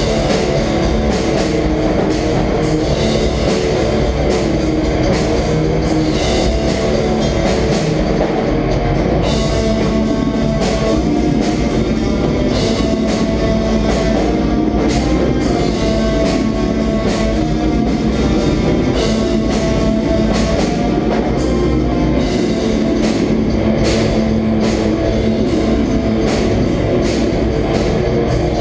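Black metal band playing live: distorted electric guitars, bass and a drum kit, loud and dense without a break.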